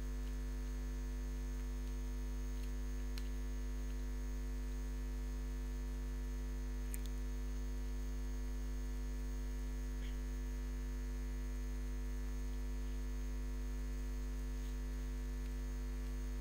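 Steady electrical mains hum, a low buzz with evenly spaced overtones, with a few faint ticks.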